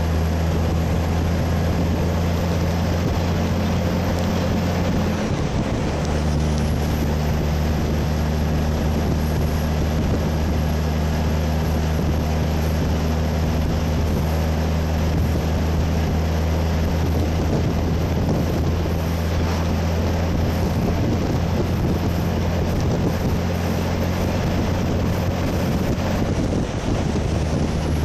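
Western Star 4800FX truck's Cummins diesel engine pulling steadily on the road, a deep even drone mixed with wind noise. The engine note breaks briefly about five seconds in, then settles back to the same steady drone.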